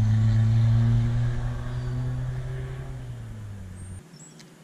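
Motor vehicle engine hum, steady in pitch, fading away over a few seconds and ending abruptly about four seconds in.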